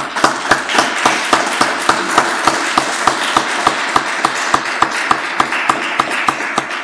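Applause from a small group: a dense run of handclaps with sharp individual claps standing out at about four a second.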